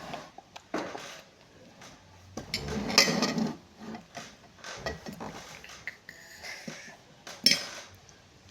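Cutlery and dishes clinking and scraping during a meal, in scattered light clicks. There is a louder noisy stretch about two and a half to three and a half seconds in, and a sharp clink about seven and a half seconds in.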